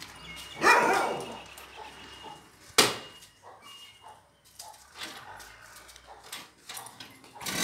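A dog barking, one loud call falling in pitch about a second in. A single sharp knock comes just before three seconds.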